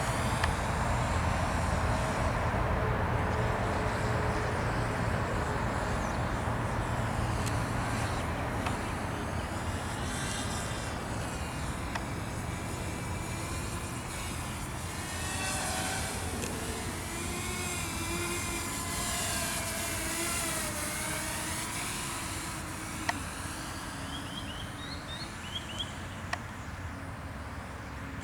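Walkera F210 racing quadcopter's brushless motors and propellers whining over a steady rush of air, the pitch rising and falling as the throttle changes. A few short high chirps and a couple of sharp clicks come near the end.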